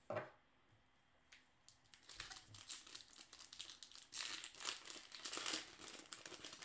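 Foil wrapper of a 2016 Bowman baseball card pack crinkling and tearing as it is ripped open by hand, starting about two seconds in and loudest in the second half.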